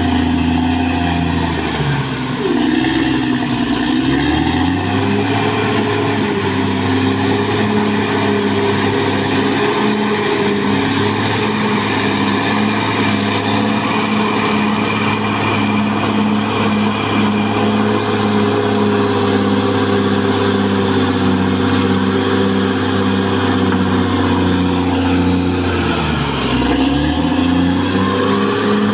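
Caterpillar D6R XL bulldozer's diesel engine running steadily. Its pitch drops and comes back up twice, about two seconds in and again near the end.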